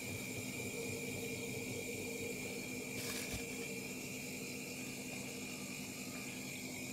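Hermetic freezer compressor running with a steady hum while refrigerant is being charged into the system and drawn in by the compressor. A short rustle of noise comes about three seconds in.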